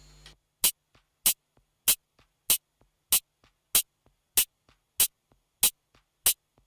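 Drum machine beat with no bass: a crisp, bright percussion hit repeating evenly about every two-thirds of a second, with faint softer ticks in between.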